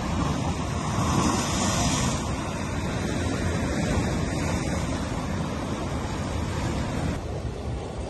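Ocean waves breaking and washing over a coastal rock platform: a continuous rushing surf that swells about a second in and eases a little near the end, with wind buffeting the microphone.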